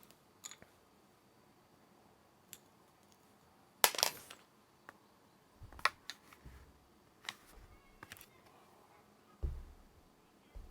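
Scattered small clicks and taps of fingers and a small screwdriver working on the battery connection inside an open MacBook Pro, the sharpest cluster about four seconds in, with a duller low knock near the end.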